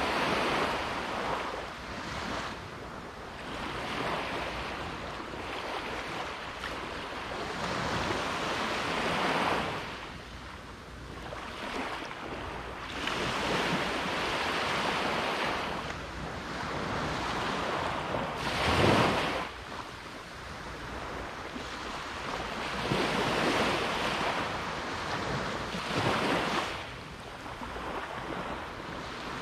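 Sea waves breaking on a beach, the surf swelling and fading every four to five seconds, with one sharper, louder break a little past the middle.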